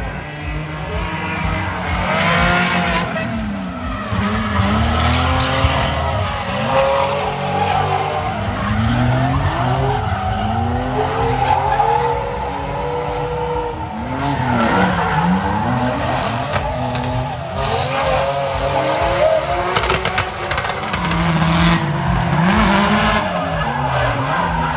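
Two drift cars sliding in tandem, their engines revving hard and swinging up and down in pitch again and again as the drivers work the throttle, with tyres squealing as they slide sideways.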